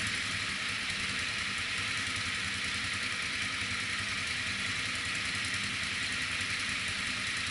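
Can-Am quad ATV engine idling at low revs as the machine creeps through a shallow stream, a steady low engine note over a constant hiss of moving water.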